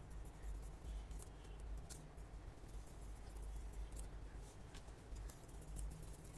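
Large tailoring scissors cutting through sequinned dress fabric: faint, irregular snips as the blades close, over a low steady hum.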